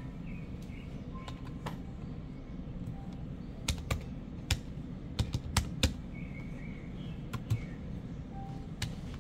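Keys being pressed on a computer keyboard: a handful of sharp, irregular clicks, bunched together between about four and six seconds in, with one more a little later.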